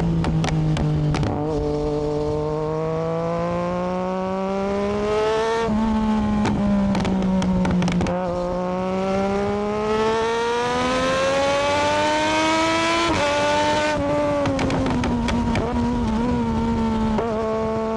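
Triumph Daytona 675R's inline three-cylinder engine under way, the revs climbing steadily and then dropping sharply at a gear change, twice, before holding steady. Sharp crackles come through in places, around the shifts.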